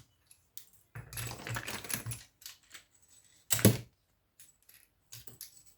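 Small metal scrap parts rattling and clicking as they are stripped and handled by hand, with one loud metallic knock about three and a half seconds in.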